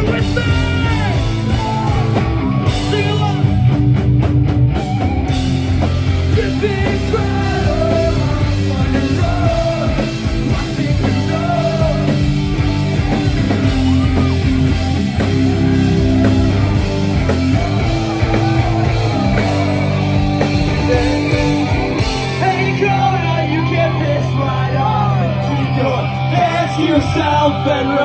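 Punk rock band playing live: loud electric guitars, bass and drums with sung and shouted vocals, heard from within the crowd. About three-quarters of the way through the deep bass drops out while the vocals carry on.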